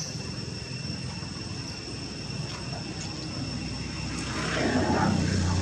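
Low rumble of a motor vehicle engine, growing louder near the end, over a steady high-pitched whine.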